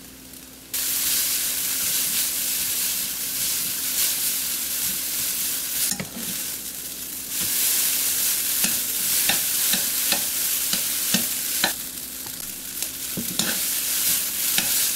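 Egg noodles sizzling in hot oil as they are pan-fried in a nonstick wok to crisp the noodle edges, with a wooden spatula and chopsticks tossing them in light clicks and scrapes. The sizzle starts suddenly about a second in.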